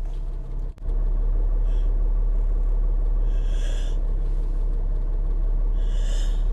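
A steady low rumble, broken by a brief dropout a little under a second in, with three faint, breathy hisses spread through it.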